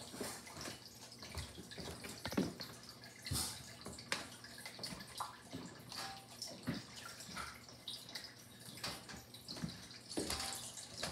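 Water splashing and trickling in a turtle aquarium, broken by irregular small splashes and knocks about once a second.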